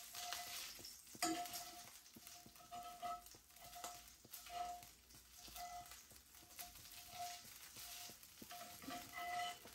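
Ground beef patties sizzling faintly in a cast iron skillet, with the scrape and clicks of a metal spatula lifting them out and setting them down in a glass baking dish.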